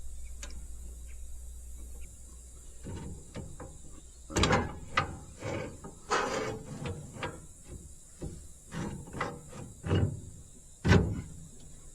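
Irregular metal clanking and knocking from work on a bush hog's hitch and its bent jack, with a few louder strikes among lighter clicks.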